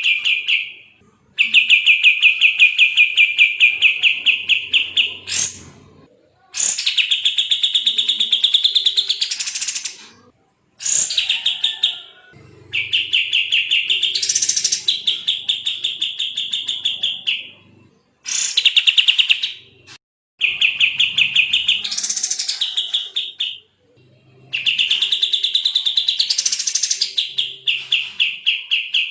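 A kapas tembak songbird singing in long, fast, dense trills, each lasting a few seconds with short pauses between, several of them sweeping higher partway through.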